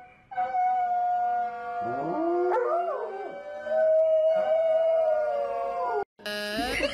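Large husky-type dog howling: long, drawn-out notes, with rising and falling wavering in the middle. The howl cuts off suddenly near the end.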